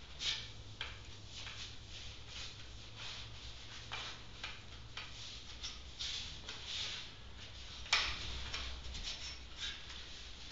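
A cloth rubbing over a glass grill panel in short, irregular wiping strokes, with a sharper scuff about eight seconds in, over a steady low hum.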